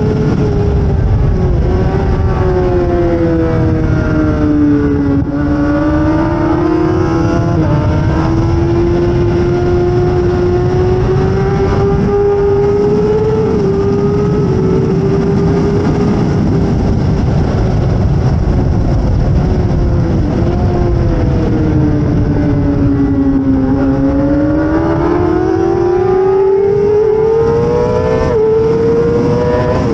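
2008 Suzuki GSX-R600's inline-four engine running hard at high revs, under heavy wind rush. The engine note falls twice, about five seconds in and again past twenty seconds, and climbs back each time as the bike accelerates.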